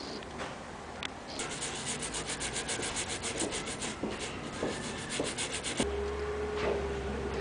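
A small brush scrubbed quickly back and forth over a circuit board, about five or six strokes a second, cleaning around the pins of a surface-mount microcontroller. The scrubbing stops near the end and a steady low hum starts.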